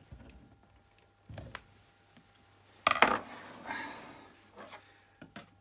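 Heavy-duty screwdriver levering a cured silicone mould loose inside a steel vulcanising mould can: metal knocking and scraping against the can, with a loud sharp double knock about three seconds in followed by a brief rasp.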